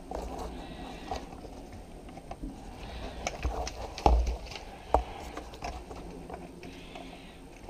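Footsteps and scuffing on a debris-strewn floor, with scattered small clicks and rustling of handled gear. Two louder knocks come about four and five seconds in.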